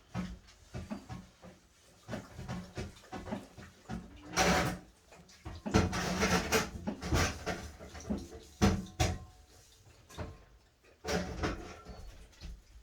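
Irregular knocks and clunks, with a longer rustling burst about four and a half seconds in.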